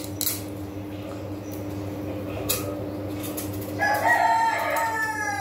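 A rooster crows once about four seconds in: one drawn-out call that falls slightly in pitch at the end. Before it come a few short scrapes of a knife peeling pumpkin skin.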